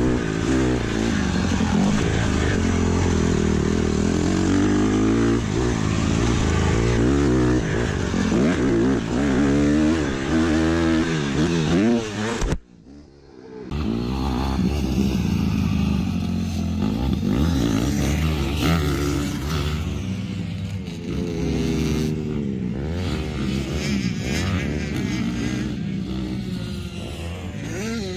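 Dirt bike engine revving, its pitch rising and falling with the throttle. The sound cuts out abruptly for about a second midway, then the engine carries on.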